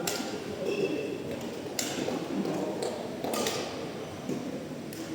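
Background voices murmuring in a large room, with a few sharp clacks about every second and a half and a brief high squeak about a second in.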